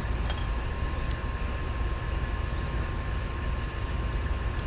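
Steady low outdoor rumble with a faint constant hum, and two light clicks of small tie-down hardware handled in the hands, one just after the start and one near the end.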